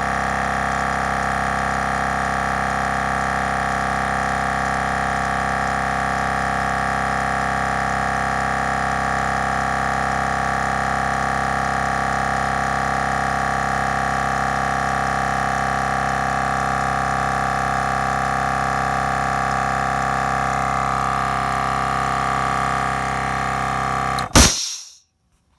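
Milwaukee M18 Fuel 2840-20 cordless 2-gallon air compressor running steadily as it fills its tank, its tone shifting slightly as the pressure builds. Near the end it cuts off suddenly with a brief burst of noise, the compressor shutting off at its set pressure.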